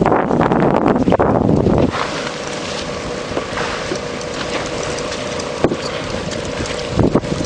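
Wind buffeting the microphone on a fishing boat, with a loud low rumble. It eases about two seconds in, leaving an even hiss with a steady hum and a couple of light clicks, then gusts back near the end.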